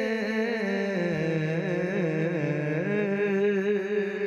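Unaccompanied male voice singing a naat, holding a long wordless melismatic note that wavers and steps down in pitch.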